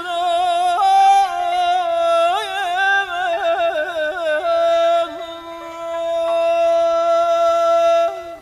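Male voice singing Persian classical avaz without clear words: a wavering high line broken by rapid tahrir ornaments about three to four and a half seconds in, then one long held note that stops just before the end.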